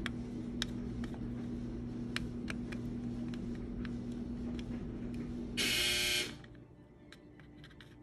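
Steady electrical hum with scattered light clicks. About five and a half seconds in, a short loud buzz sounds, and the hum stops with it.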